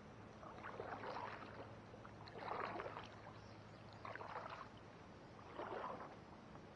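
Kayak paddle strokes in the water: four swishing splashes about a second and a half apart.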